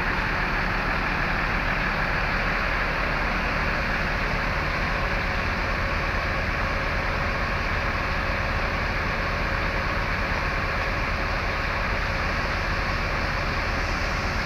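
A bus's diesel engine running steadily, with an even low hum under a wash of noise.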